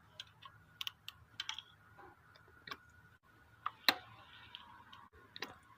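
Irregular light metallic clicks and taps, about half a dozen, as the intake camshaft of a Changan Eado 1.6 L engine is worked by hand against its VVT phaser. The phaser disc does not turn with the shaft. The mechanic reads this as the phaser broken inside, leaving the camshaft with large free play: the cause of the engine's loud rattle when running.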